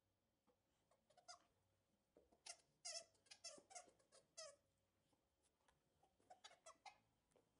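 A dog chewing a loose plastic toy squeaker, torn out of a plush alligator toy, setting it squeaking over and over. A quick run of high, wavering squeaks comes in the middle, then a few more near the end.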